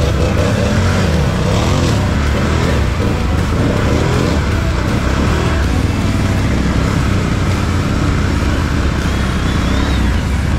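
ATV engine running at speed, its pitch rising and falling with the throttle.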